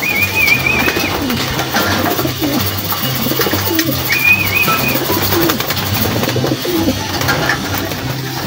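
Domestic racing pigeons cooing in a loft, low rolling coos repeating over and over. A thin, higher warbling call cuts in twice, once at the start and again about four seconds in.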